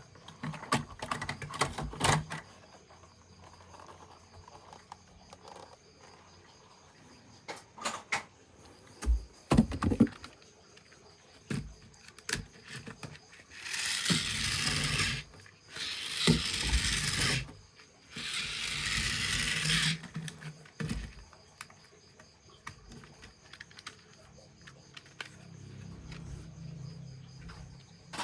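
Toys and their packaging being handled during an unboxing: scattered clicks and knocks, with three rustling stretches of a second or two each in the middle.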